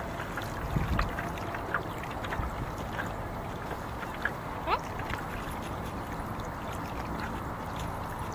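Small lake ripples lapping on a pebble shore: a steady watery wash with scattered light clicks of water and stones. A short rising squeak sounds about four and a half seconds in.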